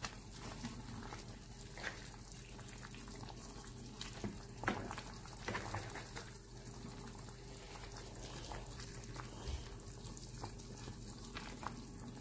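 Tom yum fish soup simmering in a pot with a faint bubbling, stirred with a white spoon that clicks and knocks against the pot now and then.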